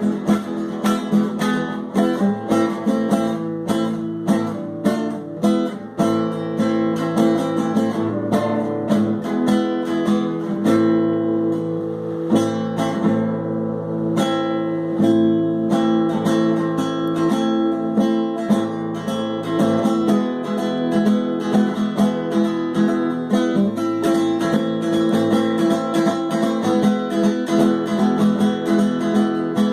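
Acoustic guitar music, picked and strummed, with a stretch of longer ringing notes about midway.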